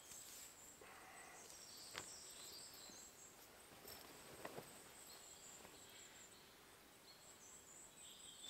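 Near silence: faint woodland background with a few thin, high chirps and a couple of soft knocks.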